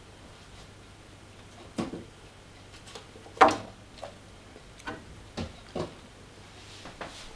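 Scattered knocks and clatters of things being handled, about seven in all and the loudest about three and a half seconds in, over a faint steady low hum.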